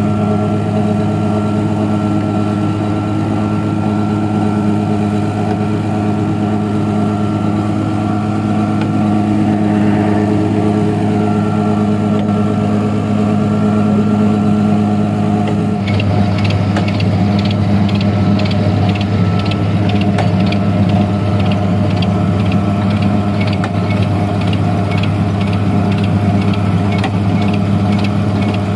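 Tractor diesel engine running steadily while it tows a mobile brick-making machine. About 16 s in, a quick, regular clacking from the machine's moulding drum and drive mechanism joins the engine.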